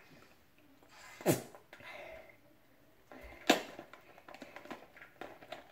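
Two loud, sharp pops about two seconds apart as a plastic drink bottle is drunk from, the first with a quick falling tail. After them come light clicks of the plastic bottle being handled.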